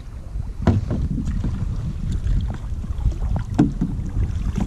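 Wind rumbling on the microphone of a kayak-mounted camera, with a few short splashes of kayak paddles dipping into the water, the sharpest about two-thirds of a second in and again about three and a half seconds in.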